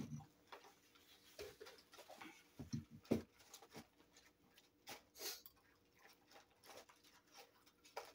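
Faint, scattered eating sounds: small mouth clicks and the rustle of fries being picked from a paper plate, with one sharper click about three seconds in.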